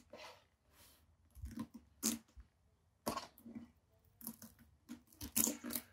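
Parts of a laptop's screen assembly being pried slowly off strong adhesive: irregular crackles and clicks, coming faster near the end.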